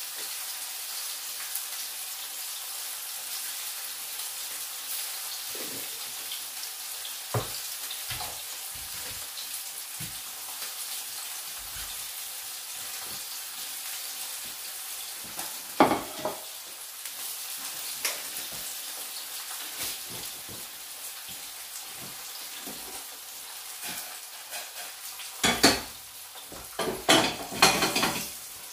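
Flour-coated sea bass fillets pan-frying in a frying pan, a steady sizzling hiss. A few sharp knocks and clatters of pan and utensils break through, the loudest cluster near the end.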